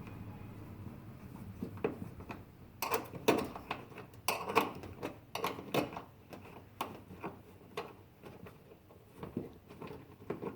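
Irregular light metallic clicks and taps of a 7 mm end wrench being worked on small bolts, turning them out a little at a time.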